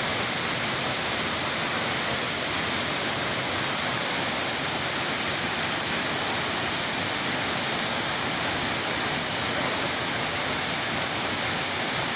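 A waterfall's steady rush of falling water, even and unbroken.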